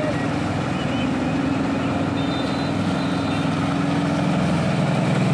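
Auto rickshaw engine running as the three-wheeler wades through flood water, over the rushing splash of water thrown off by its wheels. The engine grows louder from about halfway as it comes close.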